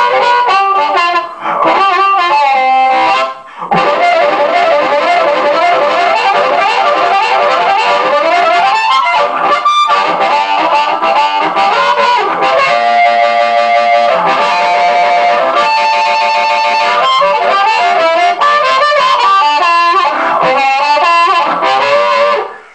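Amplified blues harmonica played through a cheap vocal microphone into a VHT guitar amp. The mic has its grille ball removed so the harp is played straight onto the element, with bicycle-tube rubber around it for an airtight seal. Continuous phrases of held and sliding notes, with a brief break about three and a half seconds in; the playing stops just before the end.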